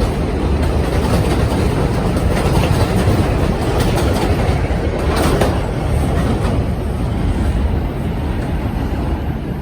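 New York subway train (a 5 train) running along the elevated track through the station, a steady loud rumble with wheels clacking over the rail joints. It eases off slightly near the end.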